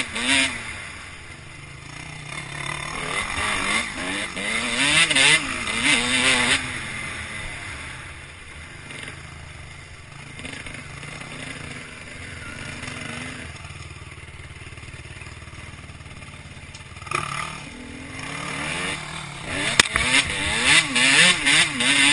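Dirt bike engine revving hard and easing off again and again, its pitch rising and falling, heard from on the bike. It runs quieter and steadier through the middle, then revs hard again near the end.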